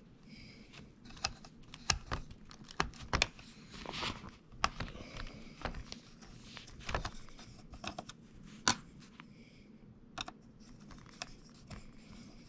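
Scattered light clicks and taps of a screwdriver and small laptop parts being handled while the cooling fan's screw is taken out, irregular and not in any rhythm, with the sharpest click about two-thirds of the way through.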